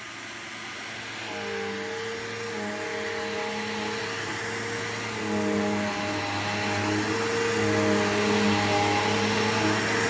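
2002 Bissell PowerForce bagged upright vacuum cleaner running steadily over a rug and growing louder, with faint held tones over the motor's rush that change pitch every few seconds.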